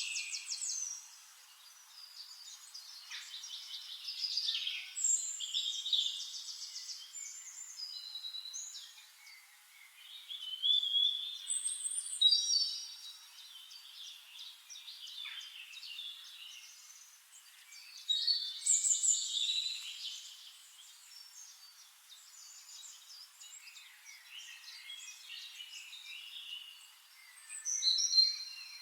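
Several songbirds singing at once in a dawn chorus: overlapping high chirps, whistled notes and rapid trills, with louder bursts of song about eleven, twelve and nineteen seconds in and again near the end.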